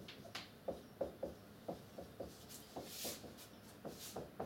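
Marker pen drawing on a whiteboard: a run of short squeaks and taps, about three a second, as small strokes are drawn one after another.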